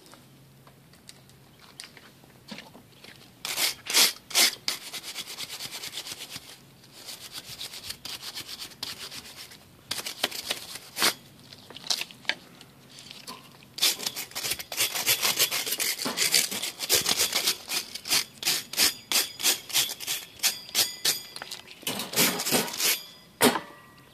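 Hand wire brush with steel bristles scrubbing the metal wires of a dish-drying rack: rasping back-and-forth scraping strokes. The strokes come in uneven spells at first, then quick and regular, about two or three a second, through the last third.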